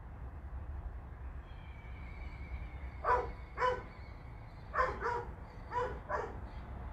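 A pet dog barking: six short barks in three quick pairs, starting about three seconds in.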